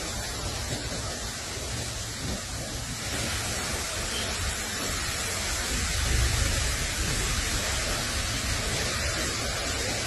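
Steady, even hiss with a low rumble underneath that swells briefly about six seconds in; no bird calls stand out.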